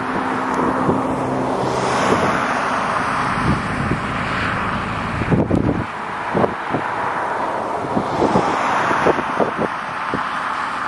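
Steady road and wind noise of a car driving at speed, with scattered light knocks.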